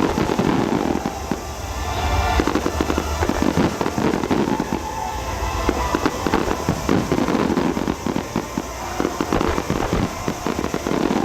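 Aerial fireworks bursting in rapid, overlapping succession, thick with crackling and a steady low rumble, with show music playing underneath.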